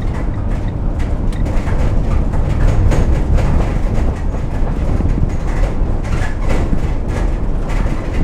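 Road noise inside a van with bare, undeadened metal panels, driving at about 30 mph: a steady low rumble of tyres and running gear, with occasional faint knocks.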